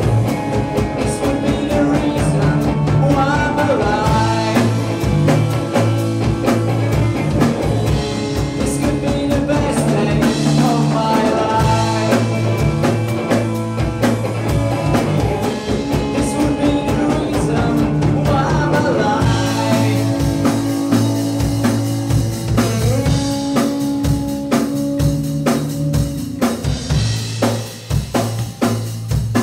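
Live rock band playing loud on electric guitar, electric bass and drum kit, with a steady driving beat. The sound changes about twenty seconds in, and the loudness dips briefly near the end.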